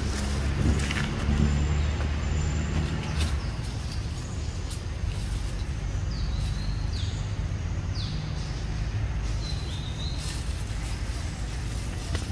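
Outdoor ambience: a steady low rumble with short high bird chirps several times, mostly in the second half, and a few faint clicks.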